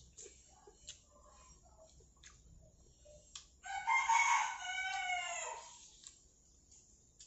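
A rooster crowing once, about two seconds long starting about halfway through, its pitch falling away at the end.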